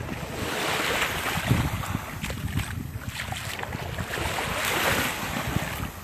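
Small waves lapping at the shoreline, swelling twice, with wind buffeting the microphone.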